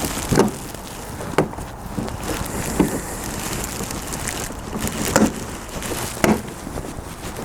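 Hands working the plastic front grille of an Alfa Romeo GT and its clips: about five separate clicks and knocks over a steady low rumble.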